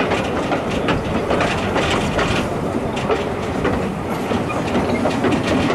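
Steam locomotive K 92 running along the track, with a steady rumble and irregular clatter of its wheels over the rails.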